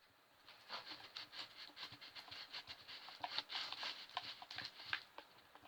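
Glue-and-paint slime mixture being stirred in a container, giving a faint run of small irregular clicks.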